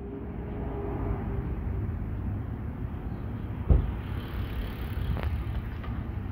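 Wind noise on the microphone while moving along a road, a fluctuating low rush, with one sharp thump about three and a half seconds in.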